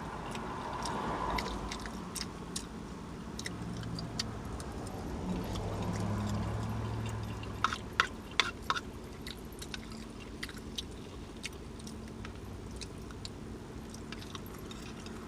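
Mouth sounds of someone eating: quiet chewing with scattered wet lip smacks, a quick cluster of them about eight seconds in, over a low steady hum that swells for a couple of seconds midway.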